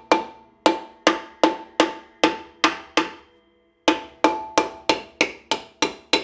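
A hammer striking a rusted rear brake drum on a Nissan Sentra to loosen it from the hub, about fifteen blows in quick succession. Each blow rings with a metallic tone that dies away, with a short pause partway through before a faster run of strikes.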